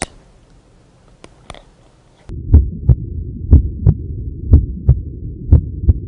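Normal heart sounds heard through a stethoscope: a steady lub-dub, S1 (the AV valves closing) followed by S2 (the semilunar valves closing), about one beat a second over a low hum, starting about two seconds in.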